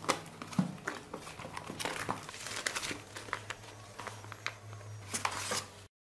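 Cardboard box flaps, a paper instruction sheet and foam packing sheets handled during unboxing: a run of rustles, crinkles and light knocks that cuts off suddenly near the end.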